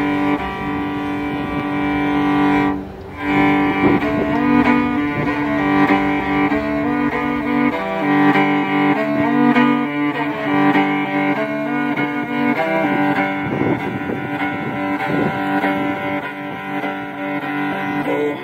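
Mongolian folk music: a bowed string instrument playing over a steady held drone, with a brief break about three seconds in.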